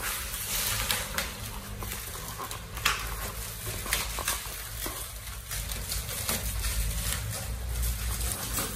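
Packaging wrap being handled and pulled off newly delivered furniture, with irregular crinkling, rustling and crackling throughout, over a faint low hum.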